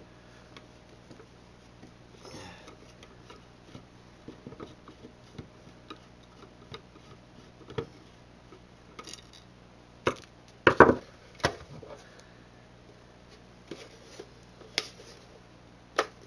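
Scattered clicks and knocks of tools and plastic parts as a DirecTV box's plastic casing is unscrewed and pried apart, with a louder clatter about ten seconds in and a sharp knock near the end, over a low steady hum.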